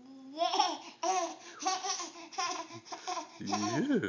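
A baby laughing and babbling in a run of short, high-pitched bursts, about two a second, ending in a longer sliding sound near the end.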